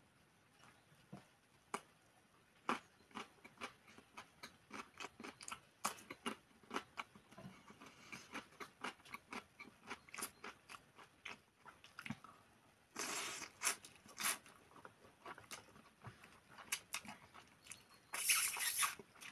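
Close-up chewing with many small wet mouth clicks, as a person eats instant noodles. Twice, in the second half, there is a short noisy slurp of noodles being sucked in, the last one near the end.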